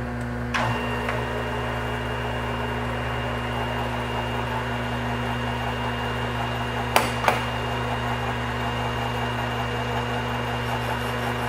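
Metal lathe spindle set to 320 RPM, running with a steady hum and a gear whine of several fixed tones; it comes on abruptly about half a second in. The tool is not yet cutting. Two light clicks come close together about seven seconds in.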